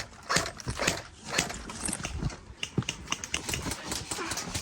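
Airsoft guns firing, an irregular string of sharp snapping shots at a few per second.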